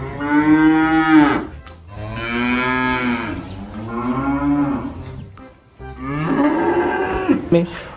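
Holstein dairy cows mooing: three long moos, each arching up and down in pitch.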